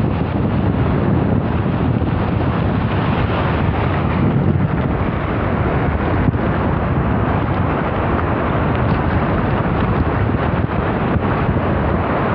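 Wind buffeting the microphone: a steady, loud rush of noise that is strongest in the low end.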